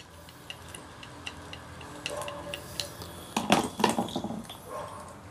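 Screwdriver working loose the housing screws of an electric power-steering motor, a run of small metallic ticks. Around three and a half seconds in come a few louder metal clinks and knocks as the motor and tool are handled.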